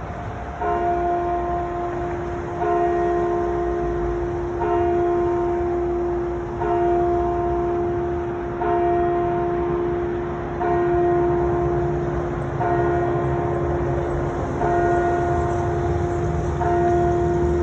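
A single church bell tolling slowly, about one stroke every two seconds, nine strokes in all, each ringing on into the next. A low rumble rises underneath in the second half.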